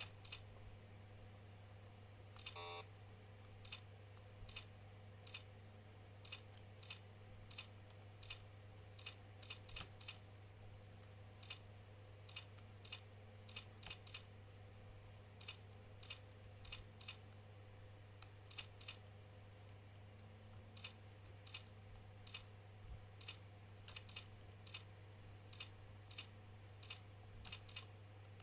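Computer keyboard keys clicking one at a time, about one or two strokes a second with uneven gaps, faint over a steady low hum. A brief buzzy beep sounds about three seconds in.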